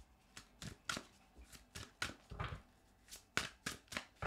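Shaman's Dream oracle cards being shuffled by hand: an irregular run of quick card clicks and flicks, several a second.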